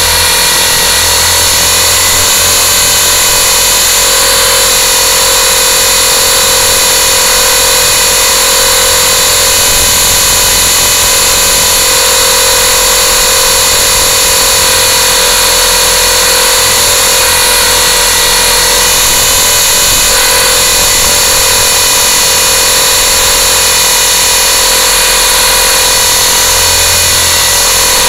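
Motor and rotors of a remote-control aircraft running steadily in a hover, a loud unbroken whine made of several fixed tones over a rushing noise, heard close-up through the aircraft's own onboard camera.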